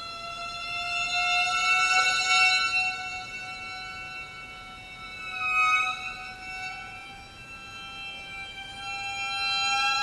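Solo violin holding one long bowed note that slides slowly upward in pitch, swelling louder about two seconds in, with a brief accent a little past halfway and a swell again near the end.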